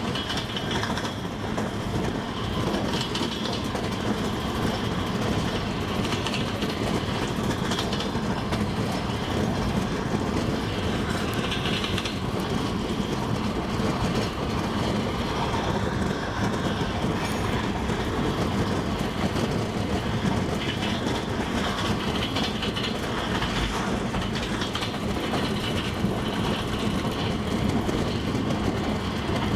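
Double-decker passenger train running along the track: a steady rumble of wheels on rails with the clatter of the wheels over the rail joints.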